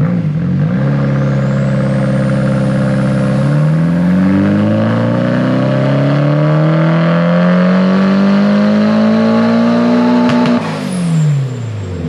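Turbocharged SR20DET four-cylinder of a Nissan 240SX S14 making a full-throttle dyno pull: it holds steady for a few seconds, then climbs smoothly in pitch through the revs for about seven seconds. Near the end the throttle closes with a sharp crack and the revs fall away.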